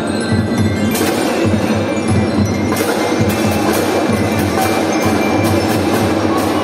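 Children's drum band playing a march: drums keep a steady beat under a melody on bell lyres, with a series of sharp crashes.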